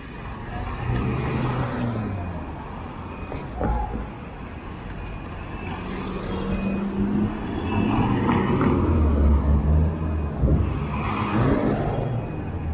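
Car engines on a street as cars pass, the engine pitch gliding up and down. The sound swells to its loudest later on, with a deep steady engine note.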